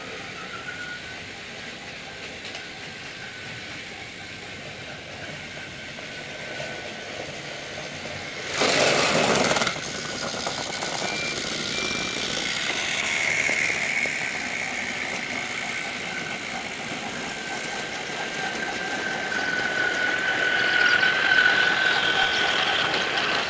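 Battery-powered Trackmaster toy train motors whirring, with a thin steady whine that grows louder as an engine runs close by. A loud burst of noise about eight and a half seconds in lasts about a second.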